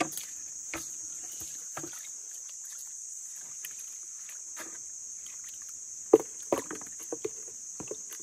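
Muddy pond water sloshing and splashing as fish are groped for by hand, in scattered separate splashes, the loudest a cluster about six seconds in. A steady high insect drone carries on throughout.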